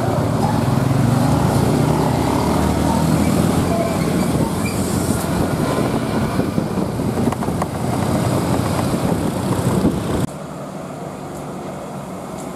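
Heavy trucks' diesel engines and road noise heard up close as a steady, loud din, with the wind and engine of a moving motorcycle mixed in. About ten seconds in it cuts off suddenly, leaving fainter, more distant traffic sound.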